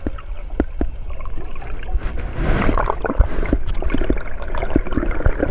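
Underwater sound picked up through an action camera's waterproof housing: a low, muffled rumble of moving water with scattered clicks and gurgles, and a brief hiss about two and a half seconds in.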